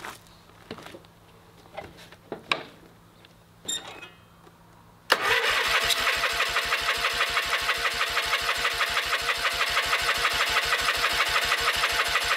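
A few footsteps, clicks and knocks, then about five seconds in a Kohler MV18S twin-cylinder engine, freshly fitted with new piston rings, catches abruptly and settles into a steady, evenly pulsing run.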